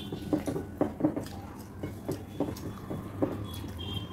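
Fingers mixing and gathering rice and dal on ceramic plates: irregular soft squishes and small taps against the plates, over a steady low hum.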